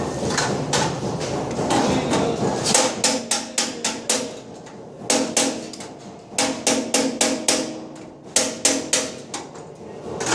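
A hammer tapping metal in quick bursts of about four to eight blows each, four bursts in all starting a few seconds in, with a ringing metallic tone under the blows.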